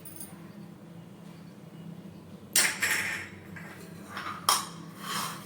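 A spoon clattering and scraping against a metal cooking pot: a longer scrape about two and a half seconds in, then a few lighter knocks and a sharp clink near the end, over a steady low hum.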